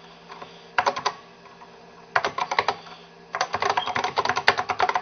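Typing on a Macintosh Plus keyboard: keys clacking in short bursts, then a fast run of keystrokes through the second half.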